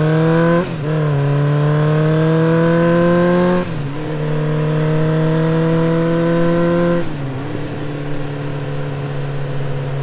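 Motorcycle engine accelerating through the gears: its pitch climbs steadily and falls back at each of three upshifts, about a second in, near four seconds and about seven seconds in, then holds fairly steady.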